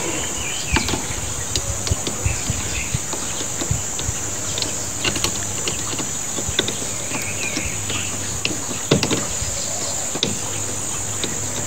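Steady high-pitched drone of insects, with scattered small clicks and knocks as a hose and fitting are handled at the outlet of a plastic water tank.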